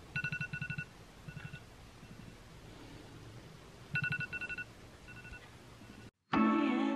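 Telephone ringing: two short trilling rings about four seconds apart, each followed by a fainter ring.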